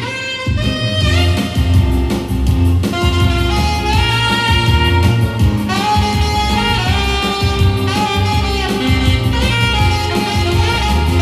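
Saxophone playing a melody of held, sliding notes over a backing track with bass and a steady drum beat.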